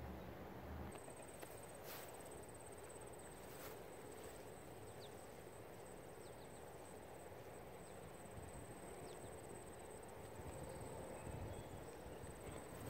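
A single insect trilling steadily at a high, even pitch, starting about a second in, over faint outdoor ambience. Two faint clicks come in the first four seconds.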